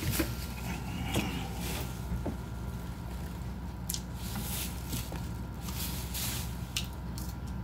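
Chewing and crunching of food close to the microphone: a few short crunches in the second half, over a steady low background hum.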